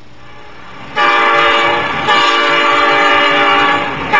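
Diesel locomotive horn sounding after a second of faint hiss: a blast about a second in, then, after a brief break, a longer held blast.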